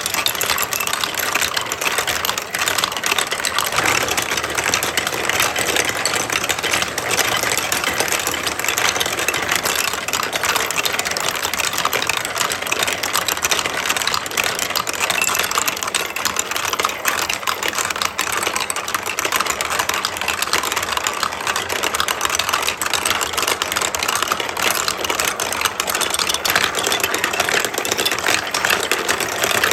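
Many glass marbles rolling and clattering down plastic building-block tracks, a dense, steady rattle of small clicks.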